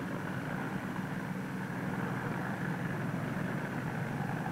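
An engine running steadily: a constant low hum with a fainter, higher whine above it.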